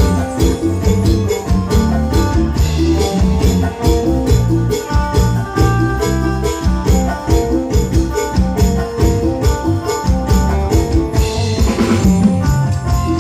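Band music with a steady drum beat, a strong bass line and melodic instruments, loud and continuous.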